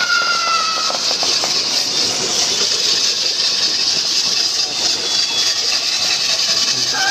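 A racing pair of bulls dragging a wooden yoke beam and a wheeled iron frame around a dirt ring: a steady hissing, rattling clatter. A high squeal sliding slightly down in pitch runs through the first second.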